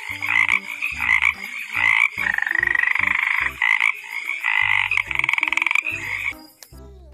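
Frogs croaking: a string of short croaks, with two longer rapidly pulsing trills about two and five seconds in.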